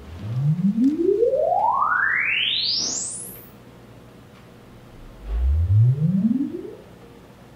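Dirac Live calibration test sweeps played through home-theater speakers. A sine tone glides up from deep bass to a very high pitch over about three and a half seconds. About five seconds in, a second, shorter sweep rises only from deep bass to a low-mid pitch, a bass-range sweep such as is used to measure the subwoofers.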